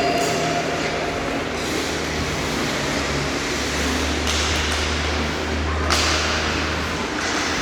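Ice hockey play in a rink: skates scraping the ice in several rushes and a sharp knock just before six seconds in, likely a stick or the puck hitting the boards, over a steady low hum of the arena.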